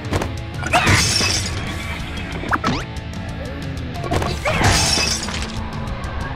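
Background music with a steady beat, over a glass object cracking and shattering as a car tyre rolls onto it, with the main break a little over halfway in. A shorter burst of sound comes about a second in.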